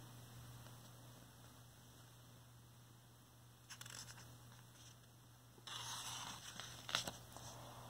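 Picture-book page being turned by hand. A brief faint rustle of paper about four seconds in, then a longer papery swish with a sharp flick near the end.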